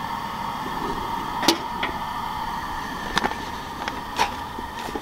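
A handful of short, sharp clicks and knocks as cookware and items are handled on a propane camp stove set on a metal grate, over a steady faint hum.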